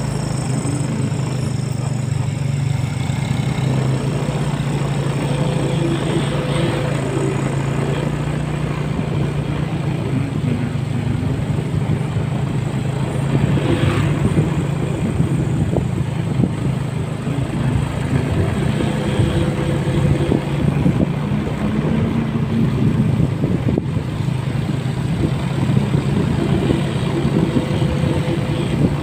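Motorcycle engine running steadily at cruising speed, with wind and road noise from riding.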